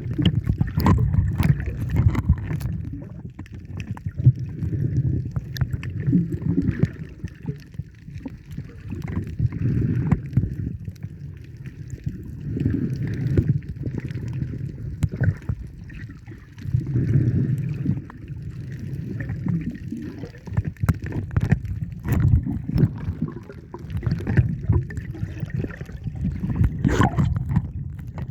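Water sloshing and gurgling around the microphone, muffled and low, in uneven surges every few seconds, with scattered small clicks.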